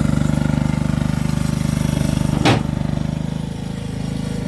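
An engine running steadily with an even pulsing beat, with one sharp clack about two and a half seconds in.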